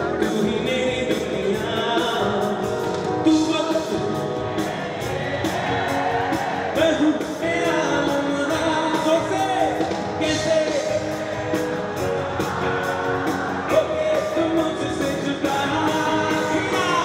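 A male singer performing with a live rock band: his voice over electric guitar, keyboard and drums keeping a steady beat.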